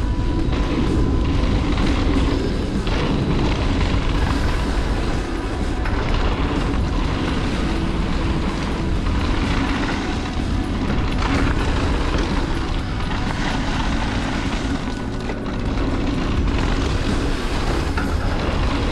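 Wind buffeting the action camera's microphone, with mountain bike tyres rolling fast over a hard-packed dirt trail: a loud, steady rushing noise with a deep rumble, dipping slightly a few times.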